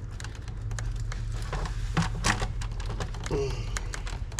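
Scattered light clicks and knocks of hands working plastic and rubber engine-bay parts, forcing a stubborn hose onto its fitting, with a few louder knocks about halfway through. A steady low hum runs underneath.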